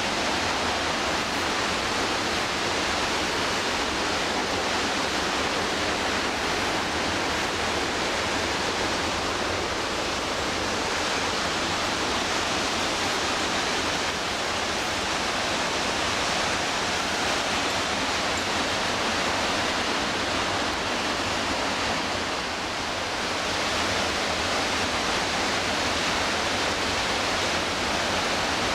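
Loud, steady rush of the McKenzie River's fast whitewater, a continuous even wash of falling water with a slight dip in level about three-quarters of the way through.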